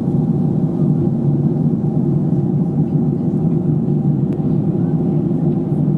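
Steady low drone inside an airliner's cabin in flight: jet engine and airflow noise heard through the fuselage beside a window seat.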